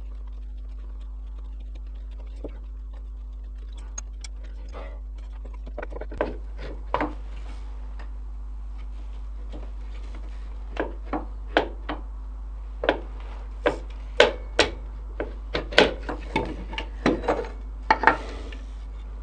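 Irregular short, sharp knocks and clinks of tools against metal as a quad's gearbox cover is worked loose, starting about six seconds in and coming thicker near the end, over a steady low hum.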